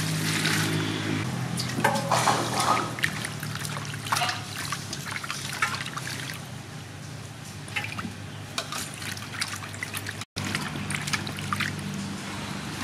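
Running water pouring into a metal basin already full of water, with irregular splashing and sloshing as hands rub and rinse fruit in it. The sound cuts out for a moment about ten seconds in.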